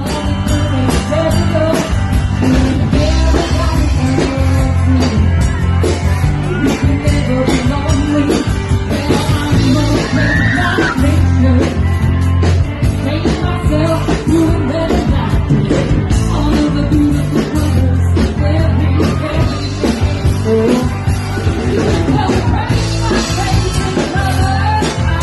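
Live band playing a rock song with a singer, heavy bass and drums throughout.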